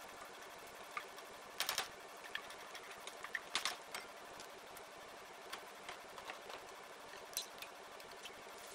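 Chopped onion sizzling softly in oil in a nonstick frying pan, with scattered small crackles and a few louder clicks of a wooden spoon against the pan in the first half.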